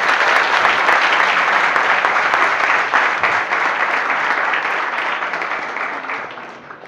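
An audience of students applauding, a dense, steady clapping that tapers off near the end.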